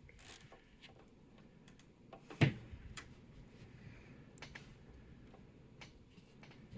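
Scattered light plastic clicks and ticks, with one sharper knock about two and a half seconds in: cables being gathered and zip-tied inside a PC case.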